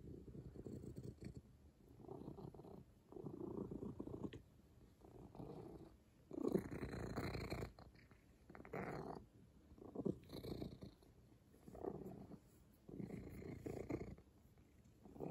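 Old domestic cat purring contentedly while being stroked under the chin, the purr swelling and fading with each breath about every second and a half, loudest about halfway through.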